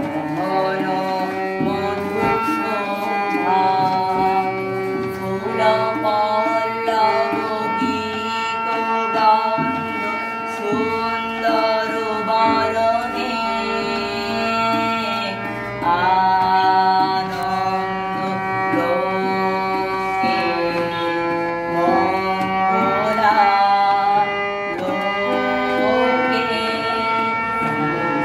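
A boy sings a song over held harmonium chords, with tabla drumming.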